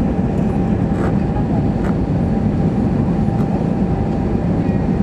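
Steady cabin noise inside an Airbus A320-212 on final approach: a deep rumble of its CFM56 engines and the airflow over the airframe, with a thin steady tone above it.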